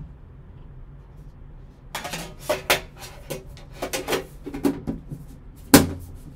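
A card box and its case being handled on a table: a run of clicks and knocks, then one loud thump near the end as the box is set down.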